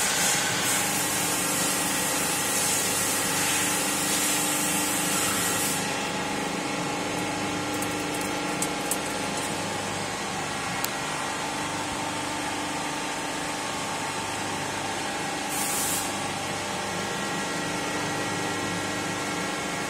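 Hydraulic press power unit running with a steady multi-tone hum. A hiss rides over it for the first six seconds and returns briefly near the end, and a few faint clicks come between them.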